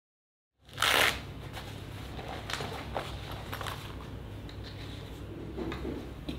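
Hand-tool work on wood in a workshop: a loud rasping scrape about a second in, then irregular light scratching and small clicks over a low steady hum.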